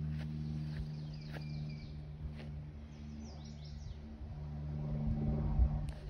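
Small birds chirping in a few short calls over a steady low motor hum, with a low bump on the microphone near the end.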